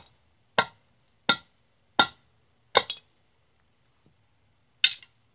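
Metal head of a long-handled maul striking a small rock on a concrete paver: a quick run of sharp hits about every three-quarters of a second, then a pause and one more hit near the end. The rock holds up and does not break.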